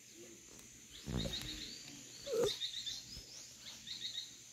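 A small dog crying: two short falling whines, the louder about halfway through. Behind them, high chirps come in quick runs of three or four notes.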